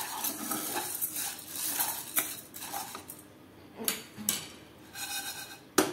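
Dry sago pearls rattling and scraping in a kadhai as a spatula stirs them, dry-roasting on a low flame. The stirring stops about three seconds in, followed by a few light clicks and a sharp knock near the end.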